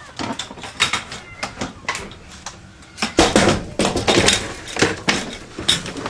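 Plastic pet carriers knocking, scraping and rattling as they are set down and shifted on the floor of a van, a run of irregular clattering bumps that is busiest about halfway through.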